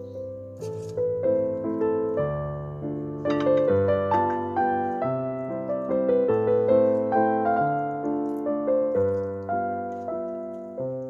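Background piano music: a slow melody of single struck notes, each left to ring and fade.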